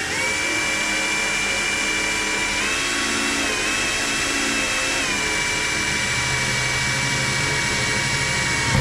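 Electric drill running at steady speed with a continuous whine while drilling holes in a mounting plate. The pitch rises slightly about a third of the way in and settles back a little past halfway, and the drill stops abruptly at the end.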